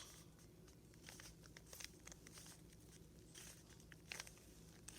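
Faint, scattered clicks of a 3x3 Rubik's cube's plastic layers being turned by hand, over a low steady room hum.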